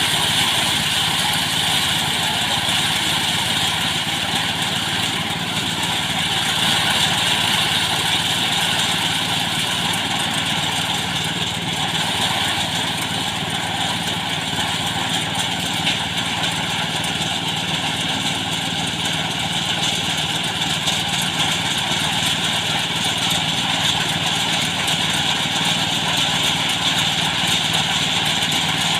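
Small engine-driven rice threshing machine running steadily, its motor and threshing drum making a continuous loud mechanical noise.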